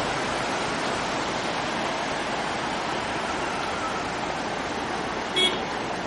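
A steady rushing noise throughout, with one short vehicle horn toot about five and a half seconds in.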